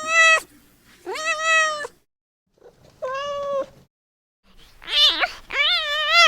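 A young kitten meowing about five times in high, drawn-out calls, the last two close together and wavering in pitch: a newborn kitten calling for its mother.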